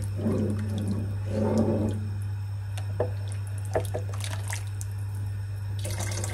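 A wooden spoon stirs a large pan of lentil and tomato soup, with a few light knocks of the spoon against the pan. Near the end, vegetable stock is poured in from a plastic measuring jug and splashes into the liquid. A steady low hum runs underneath.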